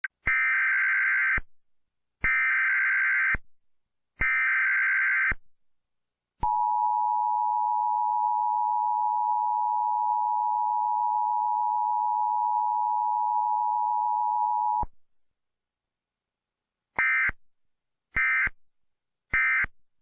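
Emergency Alert System broadcast tones: three screeching SAME data-header bursts of about a second each, then the steady two-tone attention signal held for about eight seconds, then three short end-of-message bursts.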